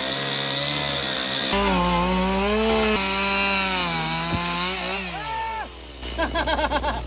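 Stihl chainsaw cutting into a shingled roof deck. It runs at a lower pitch, rises about a second and a half in and holds, wavering under load, then its pitch falls away near the end as it slows.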